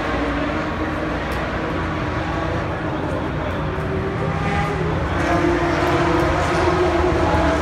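A steady engine drone under crowd chatter, growing louder about five seconds in.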